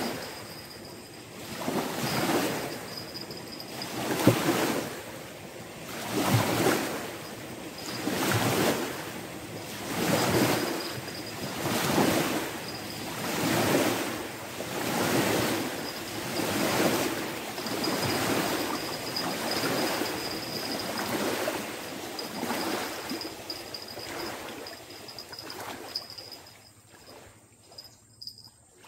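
Small waves washing in against a muddy riverbank and around a wading angler's legs, one swell about every two seconds, dying away near the end.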